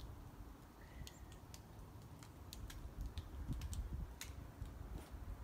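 Serotinous pine cones clicking as their scales pop open in the heat and release seeds: faint, sharp clicks at irregular intervals, several a second at times, over a low rumble.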